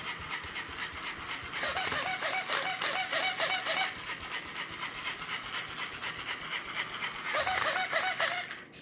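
Battery-powered toy bunny's small electric motor and gears whirring and clicking as it hops. The sound grows louder twice, from about two to four seconds in and again near the end, with a quick repeating rattle about four times a second. It cuts off just before the end.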